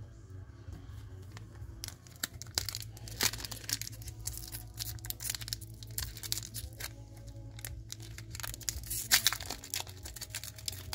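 A trading-card pack wrapper being torn open and crinkled by hand: a dense run of sharp crackles from about two seconds in. The pack's seal is a little sticky.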